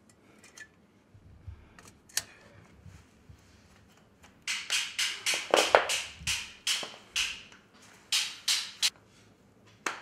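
A screwdriver scraping and prying at a cast aluminum die that is stuck fast: a run of short, sharp scraping strokes, about three a second, starting about four seconds in, after a few isolated clicks.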